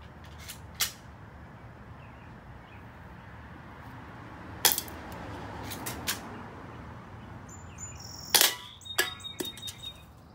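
Walther PPQ spring airsoft pistol fired unsuppressed: sharp single snaps, the loudest about halfway through and again near the end, among quieter clicks.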